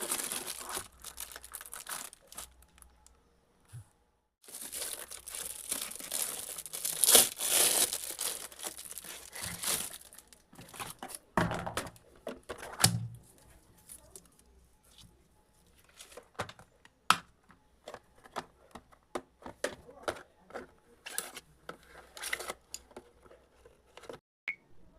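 Packaging being torn open and crinkled by hand: stretches of rustling and tearing, then scattered taps and clicks from about halfway on.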